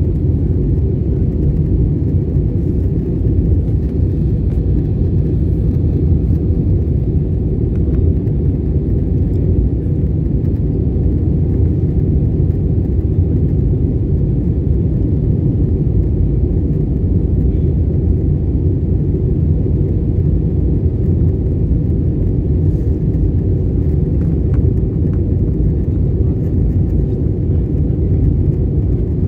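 Steady low rumble of a jet airliner's cabin noise in flight, engines and airflow heard from a window seat.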